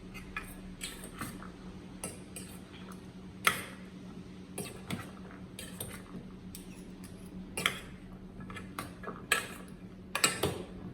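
A spoon stirring chopped fruit salad in a bowl: irregular clinks and scrapes against the bowl, with a few louder knocks.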